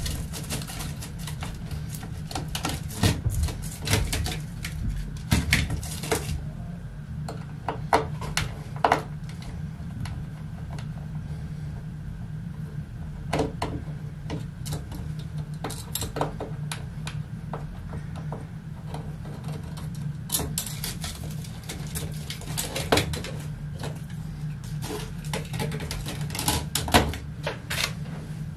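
Irregular small clicks and light clatter of metal model railway track and its small screws being worked loose with a screwdriver and handled, over a steady low hum.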